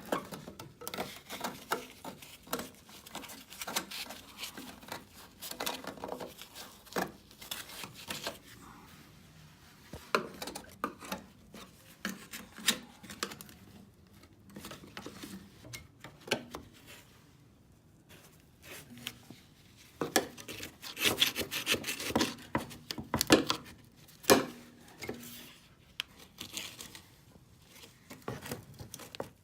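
Hand tools scraping, clicking and knocking on metal as the tabs holding a brake line to a 1966 VW Beetle's body are pried up. The noises come irregularly and are busiest about two-thirds of the way through.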